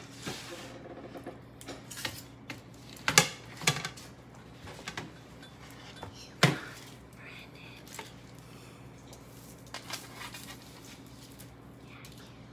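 Kitchen utensil clatter: metal tongs clicking and a foil-lined baking sheet knocking and scraping on the table as roasted green beans are served. A handful of sharp knocks, the loudest about six and a half seconds in.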